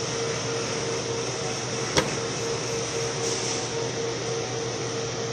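Large-format inkjet printer running with a steady fan-like whir and a faint pulsing tone. A single sharp click comes about two seconds in as its front cover is unlatched and lifted.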